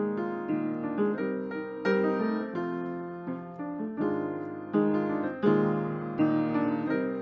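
Background music: a piano playing a slow melody over chords, a new note or chord struck about every half second.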